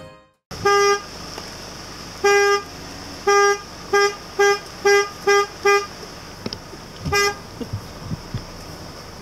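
A vehicle horn tooting nine times: two longer honks, then a quick run of short toots, and a last toot about seven seconds in.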